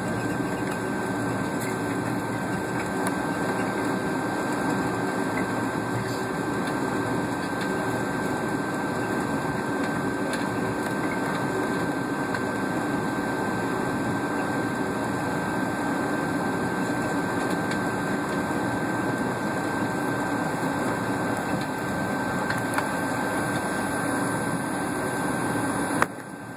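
Steady cabin noise inside a Boeing 757 taxiing at low power: engine and air-conditioning hiss with a thin steady high whine. A sharp click near the end, after which the noise drops.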